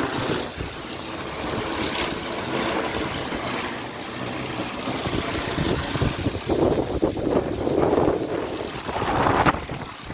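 Gale-force wind rushing and buffeting the microphone in gusts, loudest in the second half, with small wind turbines spinning fast in it.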